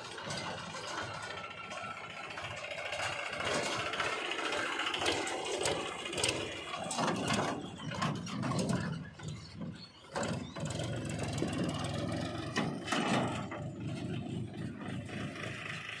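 Farm tractor's diesel engine running steadily while it hauls a loaded trailer over a rough dirt track, with occasional knocks and rattles.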